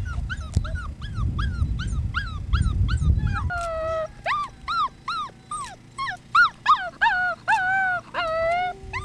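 Wolf pup howling: a fast string of short, high yips that rise and fall, about three a second, over a low rumble. About three and a half seconds in they turn into louder, longer, lower howls that waver and are held.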